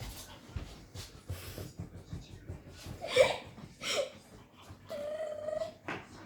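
Pomeranian giving two short yelps, then a drawn-out, steady whine, amid light rustling and scratching.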